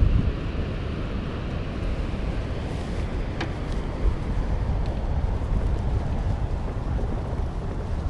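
Wind buffeting the microphone of a handlebar camera on a fatbike riding over sand, a steady low rumble, with a couple of faint clicks a little past the middle.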